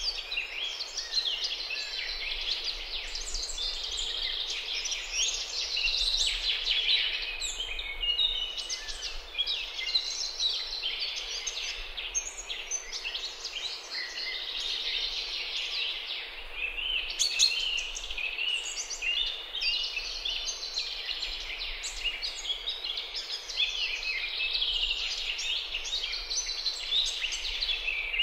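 Dense, continuous high-pitched bird chirping and peeping, many short calls overlapping without a break.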